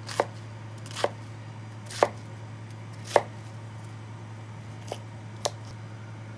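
Chef's knife cutting through a spring cabbage into thick pieces, each stroke ending in a sharp knock on a plastic cutting board. There are six strokes at about one a second, with a longer pause after the fourth. A steady low hum runs underneath.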